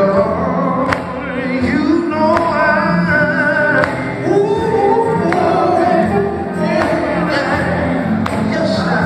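Live gospel music: a male lead singer with group vocals over electric bass guitar and drums, with a steady drum beat.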